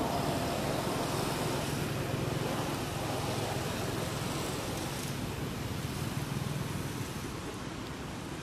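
Steady outdoor background noise with a low hum that eases off near the end.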